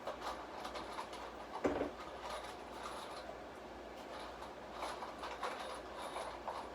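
Irregular clicks, knocks and clatter from handling wooden boards and tools during rack assembly, with one louder knock a little under two seconds in.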